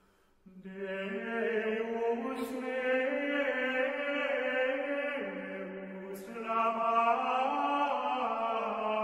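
Slow religious chant sung in long held notes. It begins about half a second in and moves to new pitches in steps, with fresh phrases starting near the middle and again about two-thirds of the way through.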